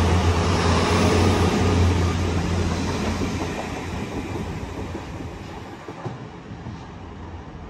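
Great Western Railway Hitachi Intercity Express Train pulling away along the platform, a steady low engine hum and wheel-on-rail rumble. It fades steadily as the train recedes, with a few faint rail clicks.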